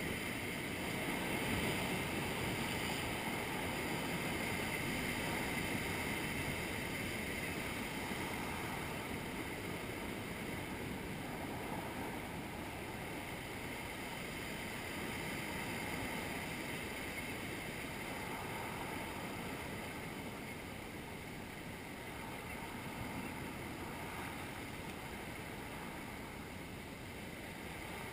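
Sea waves breaking over a rocky shore and water rushing and draining back off the rocks. The water is loudest in the first few seconds as a wave washes over, then eases to a steadier rush.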